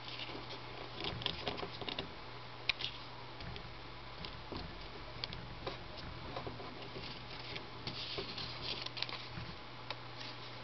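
Paper rustling and crinkling as fingers fold and crease a sheet of origami paper, with irregular small clicks and one sharper snap about two and a half seconds in, over a steady low hum.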